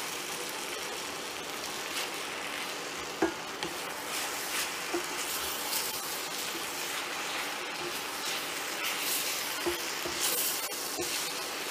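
Chicken, noodles and vegetables sizzling in a Lodge 9-inch cast iron mini wok, with the steady hiss broken by irregular scrapes and knocks of a wooden spatula stirring them against the iron.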